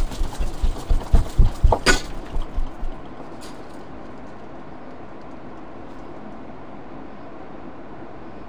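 A quick, irregular run of dull low thumps for about three seconds, with one sharper crack about two seconds in, then only a steady low hiss.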